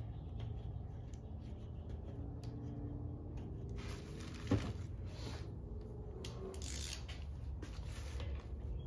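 Plastic bag crinkling and rustling as an oil pump is handled in it, with one sharp click about four and a half seconds in. A steady low hum underneath.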